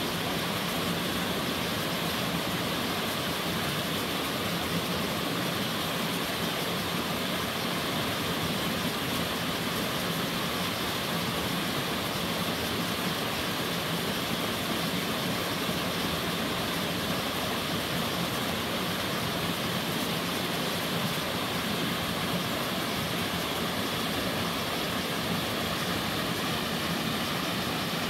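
A tiered mountain waterfall and the cascades below it, water rushing steadily over rock.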